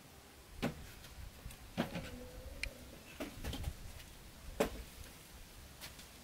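Wooden furniture knocking on a concrete floor as a small table and stool are shifted and set down: about six separate knocks, the loudest about two and four and a half seconds in.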